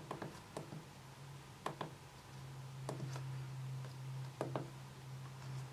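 Buttons on a handheld mini oscilloscope's keypad being pressed, giving short clicks, mostly in close pairs, about every second or so. A low steady hum runs underneath and grows louder about halfway through.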